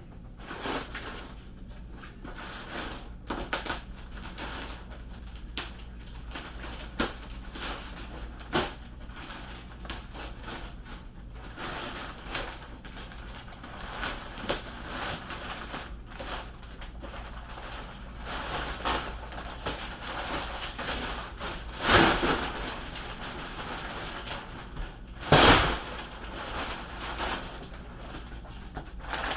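Plastic wrapping of a compressed mattress-in-a-box being handled, cut and pulled open: continual crinkling and rustling with scattered clicks, and two louder crackles near the end.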